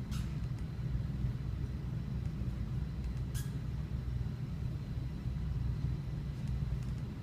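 Steady low background rumble, with two short hisses about three seconds apart.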